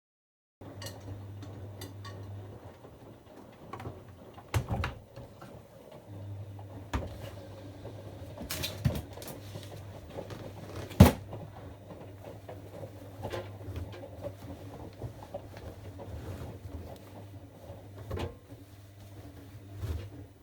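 Bosch Avantixx 7 front-loading washing machine: a low steady hum, broken off for a few seconds near the start, with scattered clicks and knocks, the sharpest about halfway through.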